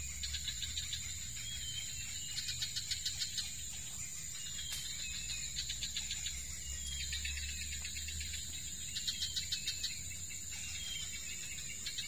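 Adult tledekan bird giving bursts of rapid ticking alarm calls, about six short runs, each less than a second long: the parent alarmed at someone near its nest and young. A steady high insect drone continues underneath.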